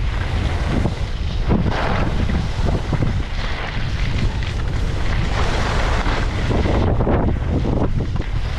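Wind rushing over the microphone of a skier's camera while skiing downhill, with the skis scraping over packed snow in swells as they turn.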